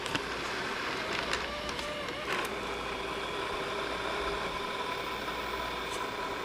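Panasonic AG-450 S-VHS camcorder's tape mechanism running in playback: a steady mechanical hum, with a couple of clicks in the first few seconds as the transport engages.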